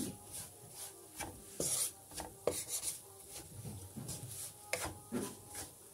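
Wooden spatula scraping and stirring semolina around a karahi, a series of irregular scraping strokes as the semolina is roasted in butter.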